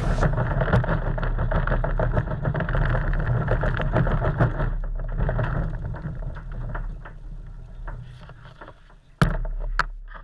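Fishing kayak on a cart, rolling over a grooved concrete boat ramp: a steady rumble with rapid clicking and rattling. It fades about seven seconds in as the kayak reaches smoother ground. Near the end come two sudden loud knocks about half a second apart.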